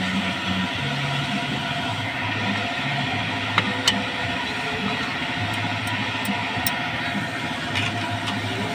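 Background music with a low bass line stepping between notes, and two sharp clicks a little under four seconds in.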